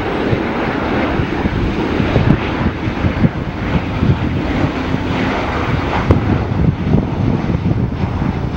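Southwest Boeing 737 on final approach with gear down, its CFM56 jet engines giving a loud, steady rushing noise overhead.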